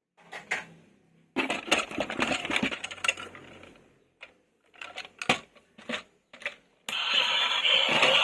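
Plastic toy vehicles being handled, with rattling and clicking for the first few seconds and sparse clicks after. About seven seconds in, a steady buzzing starts and keeps going.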